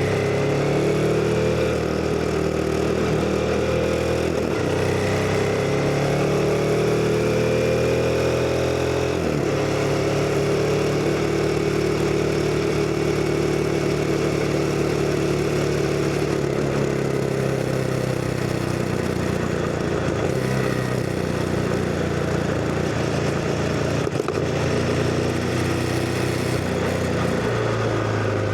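CF Moto NK 250 single-cylinder motorcycle engine pulling under way. The revs climb and drop sharply twice in the first ten seconds as it shifts up through the gears, then it holds a steadier cruising note with a few brief dips.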